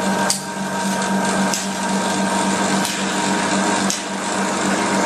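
Hydrodermabrasion facial machine's suction pump running steadily: a low hum under an even hiss of drawn air and fluid, with a brief surge about every second and a quarter.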